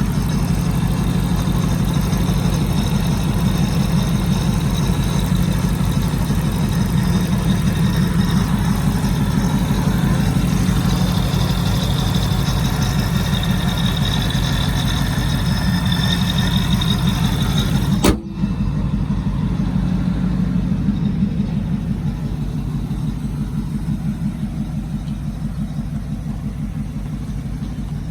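Supercharged 5.4-litre V8 of a 2002 Ford Lightning idling steadily through long-tube headers and a Bassani cat-back exhaust, with a deep, even pulse. About two-thirds of the way in there is a sharp click, after which the sound turns duller and a little quieter.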